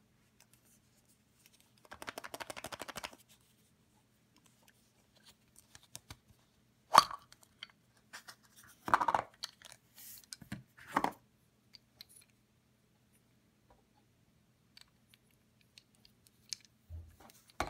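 Hands opening a plastic surprise egg and handling the small toy train tender inside: a quick rattling run of clicks about two seconds in, then several sharp plastic clicks and knocks, the loudest about seven seconds in.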